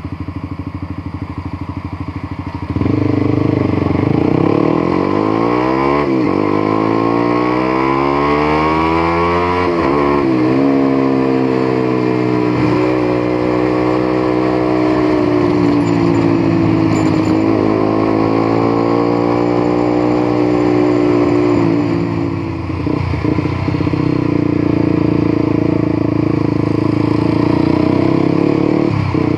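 Motorcycle engine pulling away and accelerating through two gear changes, its pitch climbing and dropping back at each shift. It then cruises at fairly steady revs, with a brief dip in revs near the end.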